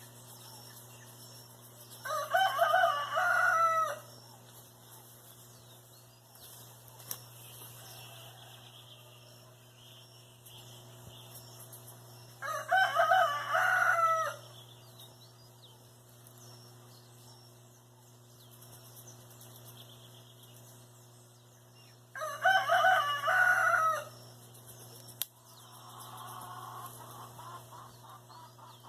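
A rooster crowing three times, about ten seconds apart, each crow lasting about two seconds.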